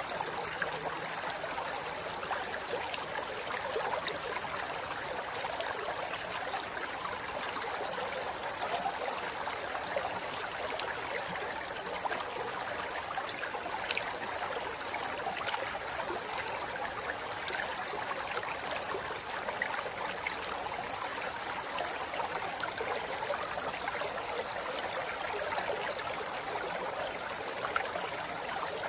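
Forest river flowing over rocks: a steady rush of water with small splashes and gurgles scattered through it.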